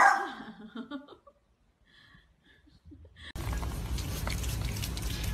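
A small dog gives one sharp bark at a big cat on the television, the last of a quick run of barks, and the bark fades over about a second. It then goes nearly quiet, and a little over three seconds in a steady hiss and low rumble with faint clicks sets in.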